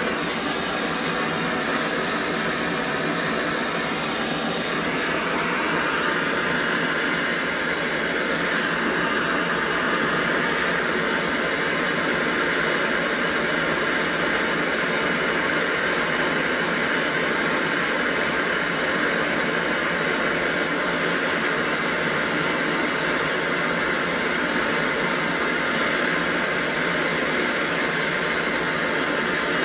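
Handheld gas torch burning with a steady hissing flame while brazing a brass stove fuel tank with filler rod. The hiss grows a little brighter about five seconds in.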